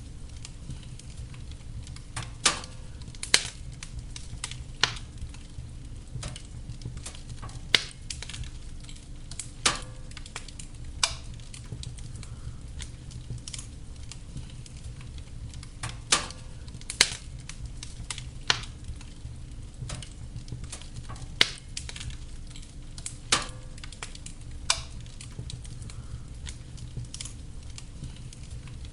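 Wood fire burning in a fireplace: a steady low rumble and hiss of the flames with sharp irregular crackles and pops from the burning logs, a dozen or more loud ones.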